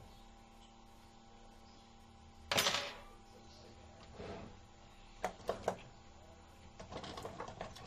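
Handling noises at an open amplifier chassis: a short, loud rustling scrape about two and a half seconds in, then three sharp clicks and, near the end, a quick run of lighter clicks and taps.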